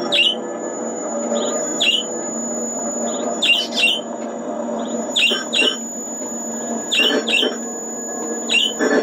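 Experimental electronic music from a keyboard run through effects pedals: pairs of short bird-like chirps, bending in pitch, come about every second and a half to two seconds over a steady drone and a thin high whistling tone.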